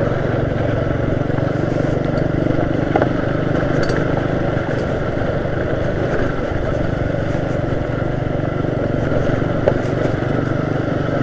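Small motorcycle engine running at a steady pace while the bike rides over a broken, rocky dirt road, with a couple of faint knocks.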